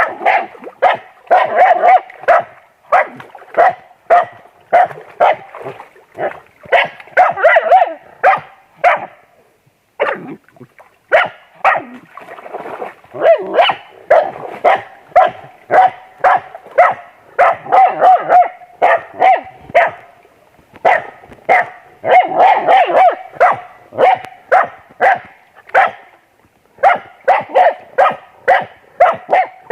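Dog barking repeatedly and excitedly, sharp barks at about two a second in long runs, with a short break about ten seconds in.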